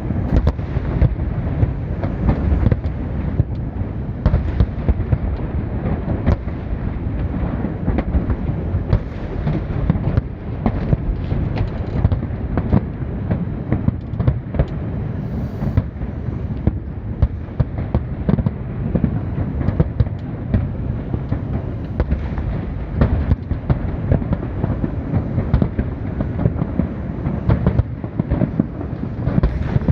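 Large aerial fireworks display: a continuous barrage of shell bursts, with deep booms and sharp cracks overlapping with no break.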